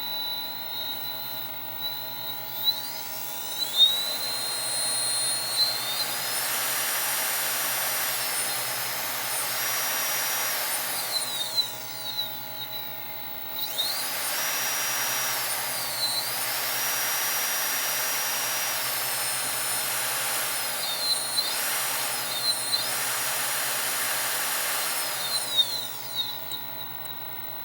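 Freshly rewound GARTT ML3508 700KV brushless outrunner motor running under power, its high whine rising as it speeds up, holding, and falling as it slows, several times over. A few sharp clicks sound along the way.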